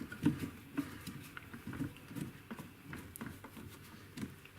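Light handling noises: scattered small clicks and taps as parts of the pickup winder are moved about.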